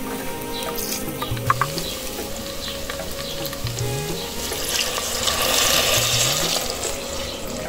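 Food sizzling as it fries in hot oil in a cooking pot, growing louder about five seconds in and easing off again near the end.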